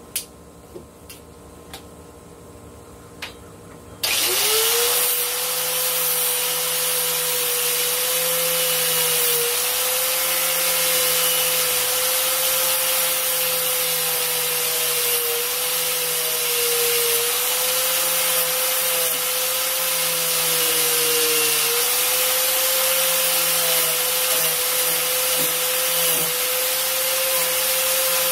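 A few light clicks of handling, then about four seconds in an electric wire wheel starts up and spins to a steady whine, its pitch sagging briefly several times as the knife is pressed into it, with a harsh scrubbing hiss as the bristles brush rust and gunk off a pocket knife's steel blade.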